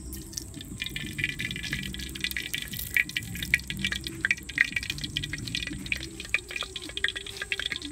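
Oil heating in a clay pot over a wood fire, crackling and sputtering with many quick irregular pops.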